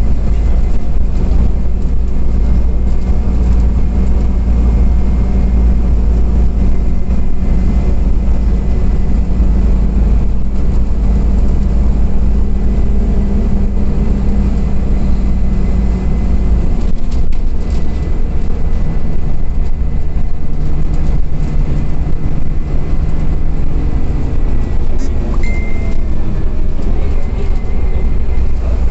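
Cabin sound of a Scania OmniCity CNG city bus under way: the gas engine and drivetrain running with a steady deep rumble and a faint high whine. About two-thirds of the way through the deep rumble eases and the engine note changes, and a short high beep sounds near the end.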